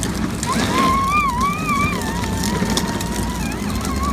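A child's high, drawn-out, wavering squeal lasting about three seconds, over a steady low hum.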